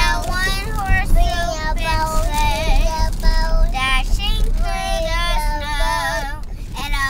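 Several children's high-pitched voices overlapping without a break, calling and sing-songing over one another.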